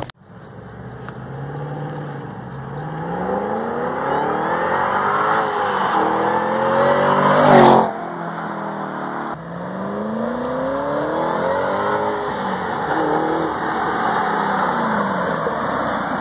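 Shelby GT500's supercharged 5.8-litre V8 at a full-throttle 0–60 launch, revs climbing in repeated rising sweeps as it shifts up through the gears, loudest about seven seconds in. After a sudden break near eight seconds the engine is heard again, revs rising and falling as the car drives back.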